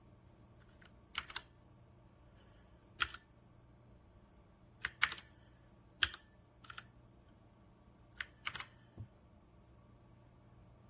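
Keys on a Logitech K845 mechanical keyboard with TTC Brown switches being pressed one at a time: about a dozen separate clicks spread unevenly, some in quick pairs, rather than continuous typing.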